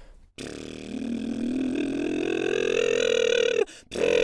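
A man's lip trill (lip roll) warm-up: a buzzing of fluttering lips carried on a sung tone that slides upward in pitch for about three seconds. After a short break, a second trill starts on a high note near the end.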